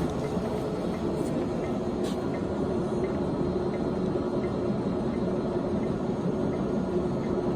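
Large POREBA engine lathe running steadily under power feed, its motor and gearbox giving a constant mechanical hum with a steady tone, while the carriage, cross slide and compound all feed at once.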